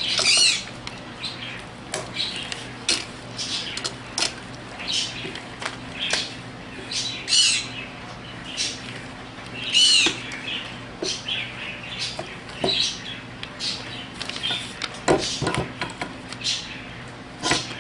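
Handling noise from parts of an air suspension pump being fitted back together by hand on a newspaper-covered bench: irregular small clicks, taps and rustles of metal and plastic. The loudest sounds are a few short, high chirps, near the start and about 7 and 10 seconds in, over a faint steady hum.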